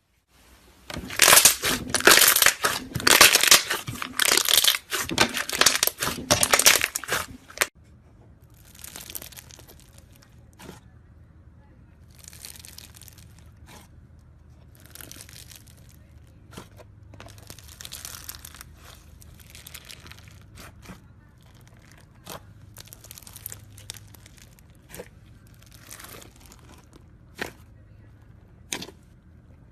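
Slime being squeezed and worked by hand: loud crackling and crunching for about the first seven seconds, then quieter squishing broken by scattered sharp pops and clicks.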